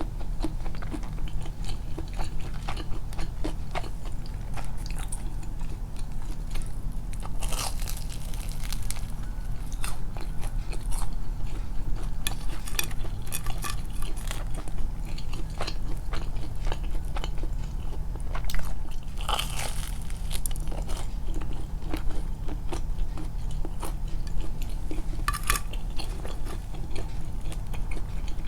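Close-miked biting and chewing of homemade fried chicken (karaage): wet chewing with irregular crunches of the coating, a few of them louder. The coating is only lightly crisp because it was fried too briefly. A steady low hum runs underneath.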